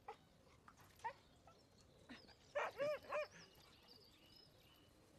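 Dog barking: a few short, high-pitched barks, with the loudest three coming in quick succession about two and a half seconds in.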